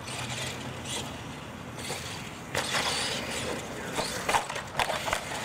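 R/C monster truck running on concrete, its drivetrain whirring with tyre noise and growing louder about two and a half seconds in. A few sharp knocks follow near the end as it hits a ramp and tips over.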